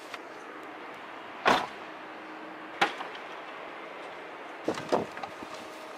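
A car door shuts with a heavy thud about a second and a half in. A sharp click follows near three seconds, then a few small latch clicks around five seconds, over a steady outdoor hiss.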